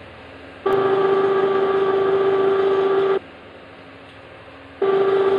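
Echo sounder giving a steady, buzzy electronic tone. It switches on with a click about a second in, stops after about two and a half seconds, and comes back on near the end.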